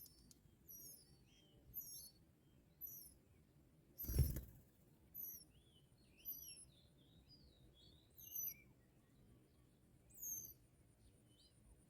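Small birds chirping: short high notes repeating about once a second, with a softer run of lower twittering notes around the middle. A single loud thump about four seconds in.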